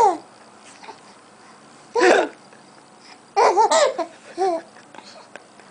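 A baby laughing in short, high-pitched bursts at an adult's fake hiccups, with a sharp hiccup-like burst among them; the bursts come about two, three and a half and four and a half seconds in.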